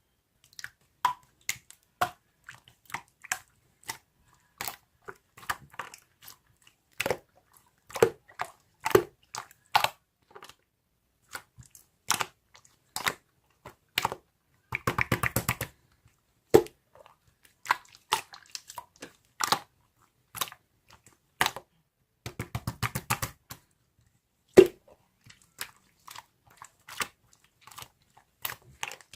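Irregular sharp clicks and taps, with two short runs of rapid clicking, one about halfway through and one a little later.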